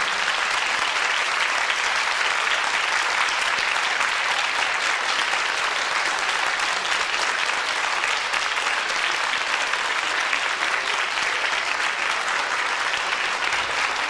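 Theatre audience applauding steadily, a dense wash of clapping that follows the end of the music.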